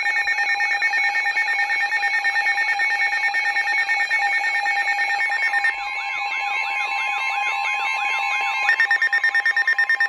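Weather radio receivers sounding a Flash Flood Warning alert. An electronic alarm beeps in rapid pulses. About six seconds in it is joined by a steady warning tone and a repeating up-and-down warbling sweep, and near the end the loud fast beeping returns.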